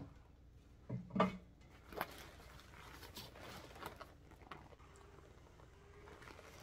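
Rustling and knocks as a fabric-covered shiatsu neck and shoulder massager is handled, the loudest a pair of thumps about a second in. A faint steady hum from the massager's motor starts about five seconds in.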